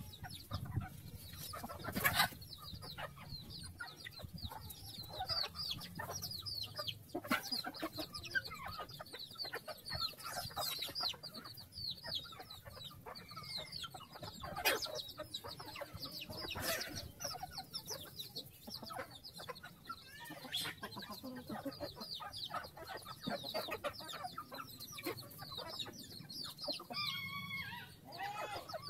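A flock of hens and a rooster clucking continually while they feed, many short overlapping calls, with a few sharp clicks scattered through.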